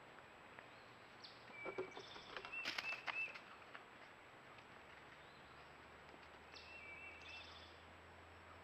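Faint steady hiss from a trail camera's microphone, with a brief cluster of clicks and short high chirps about two seconds in, and a few fainter chirps near the end.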